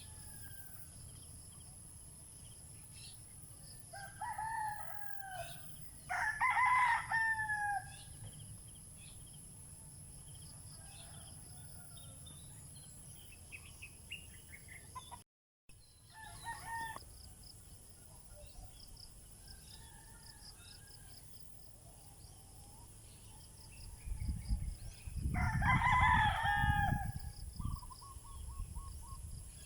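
A rooster crowing several times, the loudest crow near the end over a low rumble, with a steady high-pitched insect buzz underneath.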